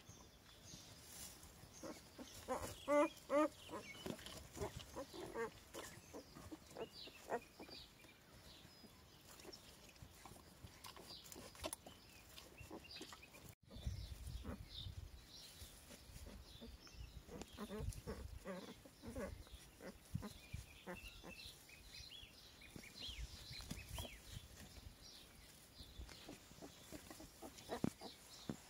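Newborn West Siberian Laika puppies squeaking and grunting in many short, high calls, the loudest cluster about three seconds in.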